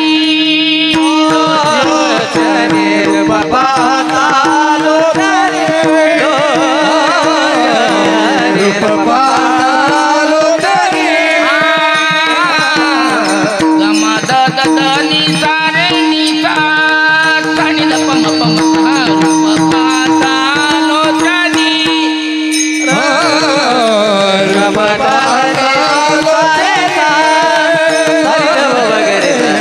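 Marathi Varkari kirtan singing: a male voice sings long, gliding melismatic phrases over a steady drone note, accompanied by pakhawaj drum strokes.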